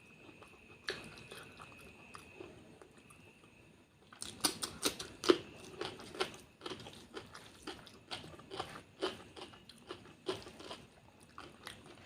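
A person chewing food close to the microphone, with wet mouth clicks and bites. The first few seconds are quiet, then steady chewing starts about four seconds in.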